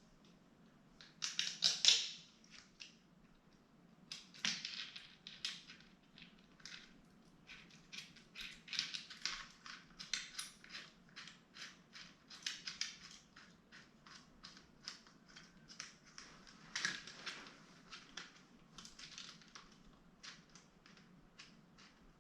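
Hand-work on plastic scooter parts: a plastic fender and a small hand tool being handled and fitted over the wheel, giving a long run of irregular clicks, taps and scrapes, loudest about two seconds in.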